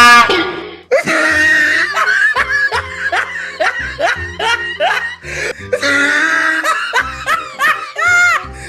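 A loud train horn blast cuts off in the first half second. Then comic background music with a steady beat and a laughing sound effect.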